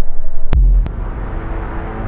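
Dark horror-style intro sting: a heavy low rumble, cut by a sudden hit about half a second in and a second, smaller one just after, then a quieter eerie drone with faint held tones that slowly fades.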